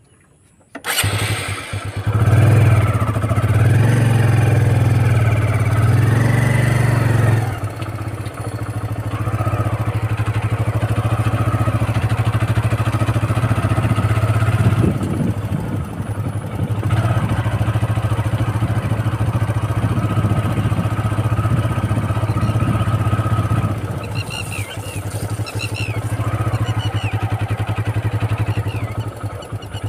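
Motorcycle engine running steadily at a low, even pitch as it rides along; it cuts in abruptly about a second in. A few short high chirps come through over it near the end.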